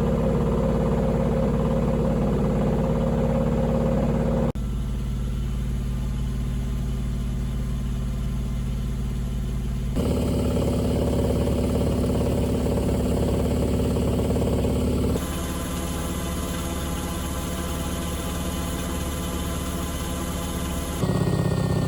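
Panasonic NA-VX9300L drum washing machine running, with a steady motor and drum hum. Its pitch and level change abruptly about four times.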